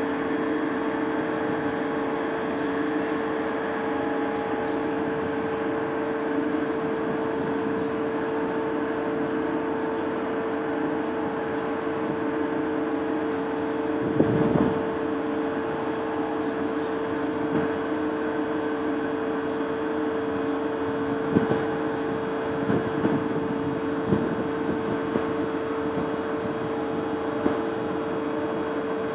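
Steady drone of a container ship's engines and machinery, with a constant hum. There are a few short knocks about halfway through and several more later on.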